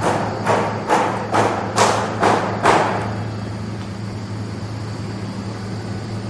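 A series of seven thumps, about two a second, stopping about three seconds in, over a steady low hum.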